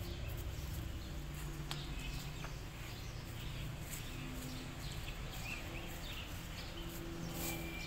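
Outdoor garden ambience: scattered short bird chirps over a steady low rumble, with a couple of faint clicks.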